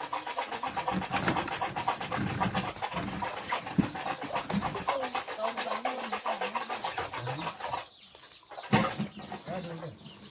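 Chickens clucking over a fast, steady tapping that stops about eight seconds in, with voices in the background.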